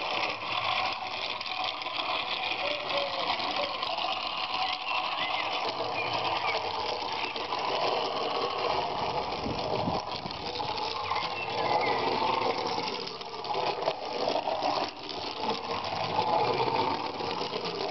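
Small battery-driven toy-train motor and its plastic gearing whirring steadily as the model tram runs round plastic 12 mm track.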